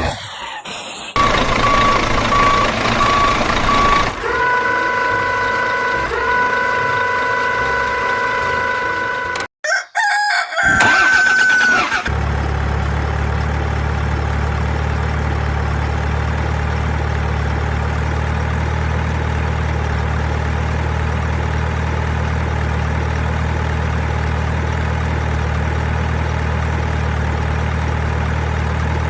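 An engine idling with a steady low hum, taking over about twelve seconds in. Before it come shifting sounds with long held tones and a brief cut-out.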